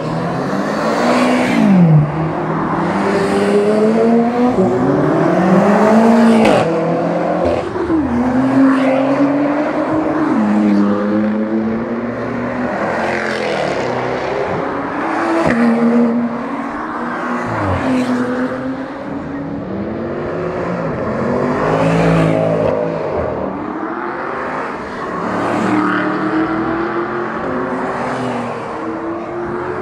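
Sports cars and supercars accelerating past one after another, their engines revving up and dropping back in pitch at each gear change.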